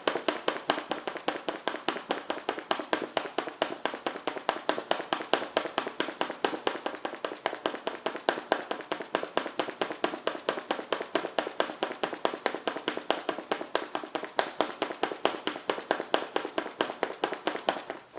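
Rapid, even train of sharp clicks, about five or six a second, from a person rocking the pelvis up and down while lying on a Magic Back Support arched back stretcher. The clicks stop abruptly near the end. The uploader presents them as the lower back cracking and popping continuously.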